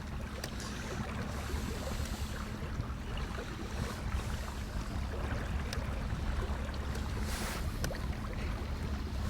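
Small boat's outboard motor running steadily at low cruising speed with a constant low hum, water noise around the hull, and gusts of wind on the microphone about a second in and again near the end.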